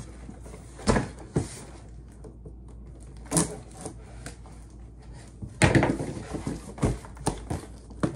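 Cardboard shipping box being handled and its packing tape cut open: a series of knocks, scrapes and rustles, busiest about six seconds in, with a few more knocks near the end.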